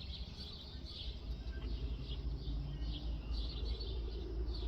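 Small birds chirping repeatedly in short high calls, over a low steady rumble that strengthens about a second in.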